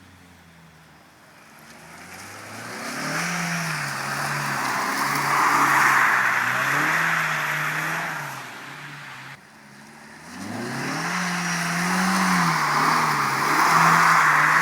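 Mazda MX-5 Miata's four-cylinder engine revving hard as the car drifts on wet pavement, its pitch rising and falling with the throttle under the hiss of the tyres. The sound builds from about two seconds in, cuts off abruptly a little past the middle, then builds again for a second run.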